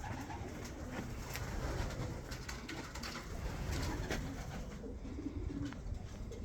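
Domestic pigeons cooing repeatedly in a loft, with scattered sharp clicks and taps among them.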